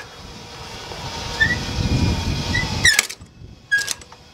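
A line is hauled through the mast fittings to run the spinnaker pole car along its newly glued mast track. A rumbling noise swells with two short rising squeaks, then the fittings give metallic clicks about three seconds in and again near the end.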